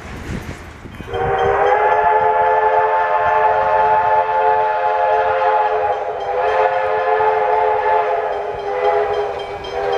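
Diesel locomotive horn sounding one long multi-note chord, starting about a second in and held steadily to the end, over the rumble of a passing freight train.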